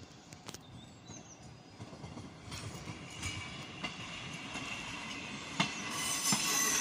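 Czech Railways regional railcar rolling through the station, its wheels squealing, louder over the second half. Two sharp clacks of the wheels over rail joints come near the end.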